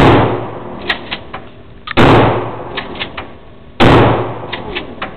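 Three shotgun blasts about two seconds apart, each followed by a short echoing tail, with a few faint clicks between the shots.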